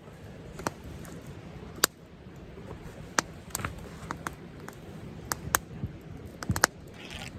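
Wood campfire crackling, with sharp irregular pops every second or so, over the steady rush of a nearby river.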